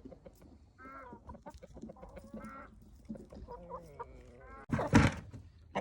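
Chickens clucking, several short calls over the first few seconds, then a loud, brief rustling burst about five seconds in.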